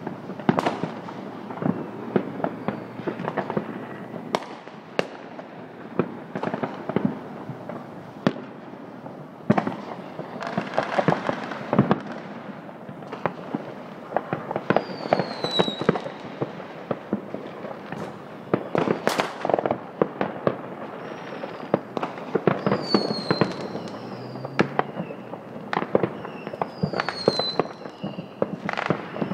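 Many consumer fireworks and firecrackers going off all around: a constant, irregular stream of bangs and crackling pops, some near and some distant. A few short falling whistles come through in the middle and near the end.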